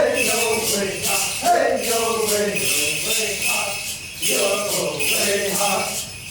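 A Native American song chanted by a voice, with jingling bells shaken in rhythm alongside it.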